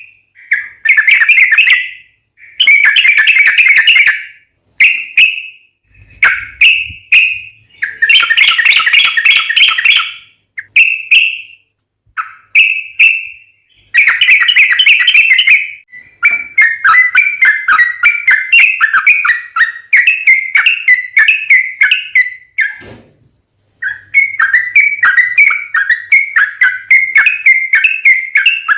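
Yellow-vented bulbuls (trucukan) singing loudly. The first half is short bursts of bubbling, chattering song with brief gaps between them. Then comes a long, fast run of repeated notes, broken once by a short pause near the end. It is the long rapid 'ropel' song used as a lure call to provoke other trucuk bulbuls into answering.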